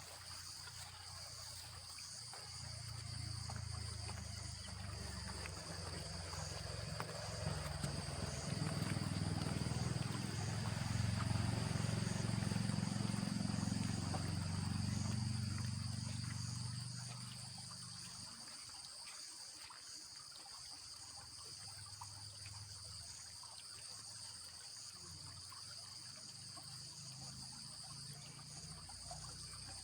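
A steady, high insect chorus in two pitches shrills without a break. Under it, a low droning rumble swells over several seconds, is loudest around the middle, and fades away about two-thirds of the way through.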